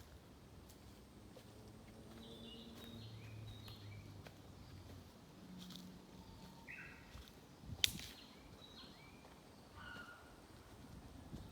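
Faint, scattered chirps of small forest songbirds. A single sharp snap about eight seconds in stands out as the loudest sound.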